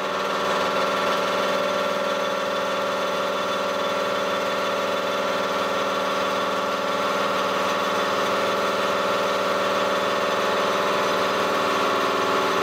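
Servo weld shaver's milling head running steadily as it mills the weld reinforcement off a spiral-welded pipe: an even mechanical drone made of several steady tones.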